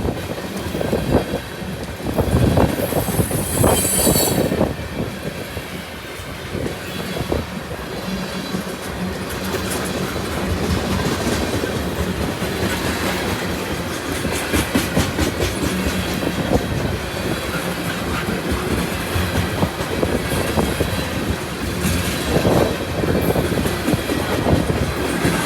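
CSX freight train rolling past: a steady rumble of wheels on rail with rhythmic clickety-clack over the rail joints, and a brief high wheel squeal about three seconds in.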